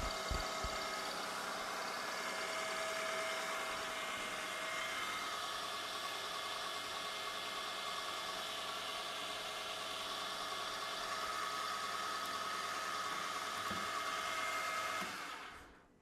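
Milling machine spindle running with a steady hiss and whine while a carbide boring bar cuts the ball end of a metal button blank in a 5C collet. The spindle winds down and stops about fifteen seconds in, at the end of the cut.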